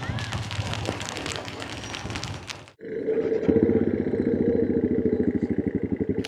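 Safari jeep: first a broad rushing, rattling noise from the vehicle on the move. Then, after a sudden cut almost three seconds in, its engine runs with a fast, even pulse.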